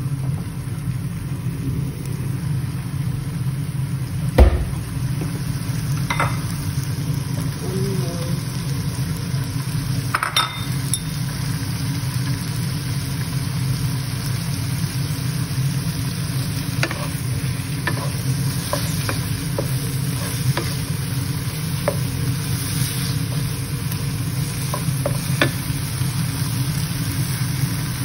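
Chicken pieces and sliced red onion sizzling in oil in a nonstick frying pan, with a wooden spatula stirring and scraping against the pan in scattered short clicks over a steady low hum. One sharp loud knock about four seconds in.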